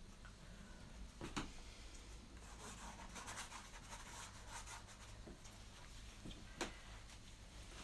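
Faint scratchy strokes of a paintbrush working thick oil paint on canvas, with two sharp taps, one about a second and a half in and another about five seconds later.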